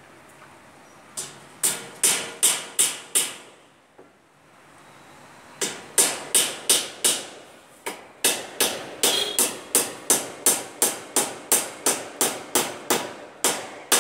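Hammer blows on a roof fascia board being fixed overhead: six sharp strikes, a short pause, then a long steady run of strikes at about three a second.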